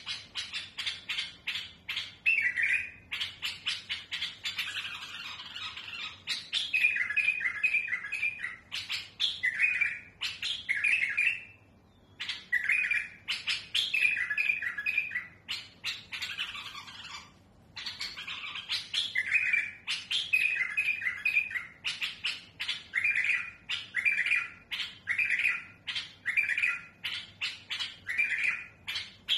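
A caged bulbul singing without a break, with a fluent yet harsh, rough-toned song: short chirped phrases repeated in quick groups, alternating with dense runs of rapid, clicking notes.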